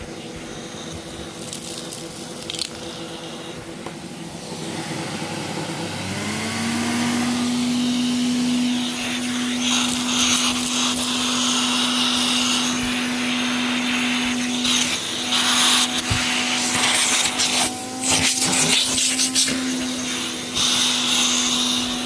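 Hoover Galaxy SC228 cylinder vacuum cleaner running, its motor tone rising and settling about six seconds in, then holding steady. From about ten seconds in there are bursts of hiss and clicking as debris is sucked up the hose off the carpet. The motor runs louder than normal because its armature bearing is out of position.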